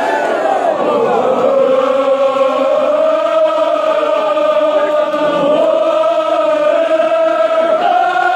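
Chanted recitation of a Kashmiri marsiya, a Shia elegy, by a group of voices. They hold one long, drawn-out note for most of the time, and the pitch steps up near the end.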